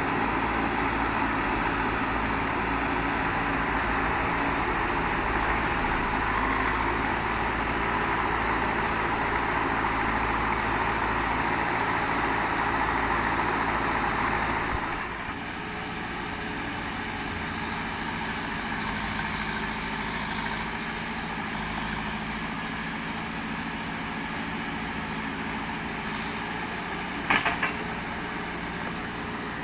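Diesel engine of a Terex TLB 740S backhoe loader working hard, then dropping to a quieter, lower run about halfway through. A brief sharp sound comes near the end.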